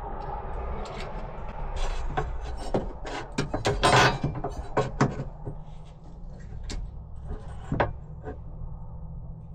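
A run of clicks, knocks and rubbing from handling wooden pieces and hardware, loudest in a cluster about four seconds in, over a steady low hum.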